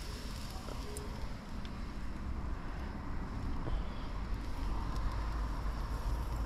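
Trout sizzling on a wire grill basket over hot charcoal, a steady hiss, with wind rumbling on the microphone and a few faint clicks of the metal basket.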